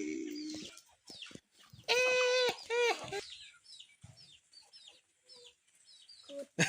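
A chicken gives two loud, held squawks about two seconds in, followed by a string of short, high, falling peeps.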